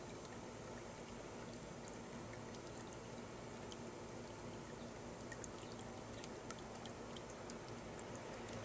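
Water from a birdbath fountain trickling steadily down into its basin, with scattered small drips.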